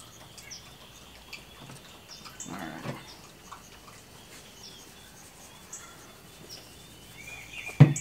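Quiet outdoor background with faint, short, high chirps from birds scattered through it and a soft shaking of a seasoning shaker over kebab skewers, ending with a sharp knock just before the end as the shaker is set down on the counter.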